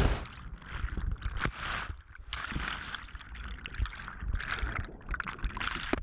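Muffled gurgling and bubbling of river water heard from below the surface, with scattered small clicks and knocks.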